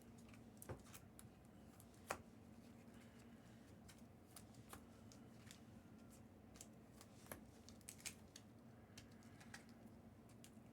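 Faint, scattered clicks and soft snaps of trading cards being handled and flipped through, at irregular moments, over a faint steady low hum.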